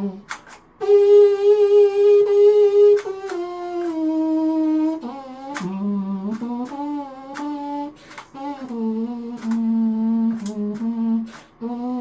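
3D-printed plastic trumpet playing a slow melody of held notes that step up and down in pitch, with short clicks between some of the notes.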